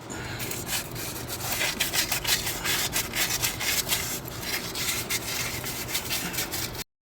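Fast, uneven scrubbing strokes of hand abrasive work on metal, of the kind used to clean the steering knuckle's bearing bore before a new hub goes in. The strokes cut off abruptly near the end.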